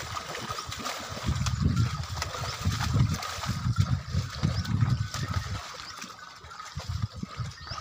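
Muddy water sloshing and splashing around water buffaloes as they wade and step through a shallow canal, in irregular surges.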